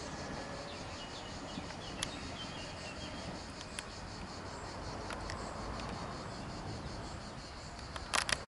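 Outdoor summer ambience: a steady background hiss with faint insects chirring and a few short bird chirps. A quick cluster of sharp clicks comes near the end.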